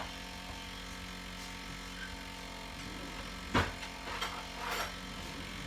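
Kitchen utensils handled while a spoon is fetched: one sharp knock about three and a half seconds in, then two short clattering rustles, over a steady electrical hum.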